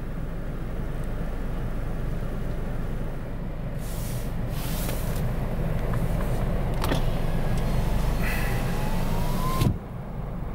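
Car driving, heard from inside the cabin: a steady low engine and road rumble, with two stretches of hiss, about four and eight seconds in, and a click near the end.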